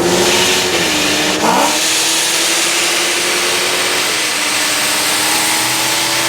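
Car engine running at a steady pitch over road and wind noise. About a second in, the pitch briefly dips and comes back up.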